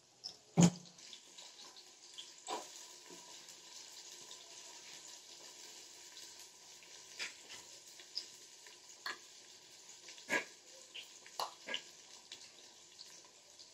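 Onions and whole garlic cloves frying in oil in an open aluminium pressure cooker, with the onions starting to brown: a steady sizzle broken every second or two by sharp clicks and pops, the loudest about a second in.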